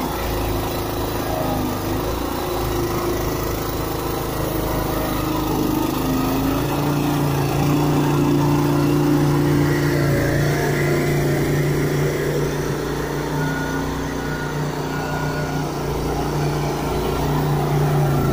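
Straw-bedding machine (straw blower) running steadily as it moves through the barn spreading straw, a continuous engine hum that grows slightly louder about halfway through.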